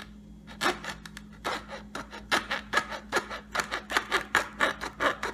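A blade sawing back and forth through the cover of an American football: a run of quick rasping strokes, about three to four a second, starting about half a second in.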